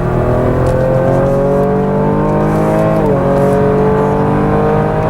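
2018 Holden Commodore's V6 engine accelerating hard, heard from inside the car. The engine note climbs steadily, drops sharply with an upshift about three seconds in, then climbs again.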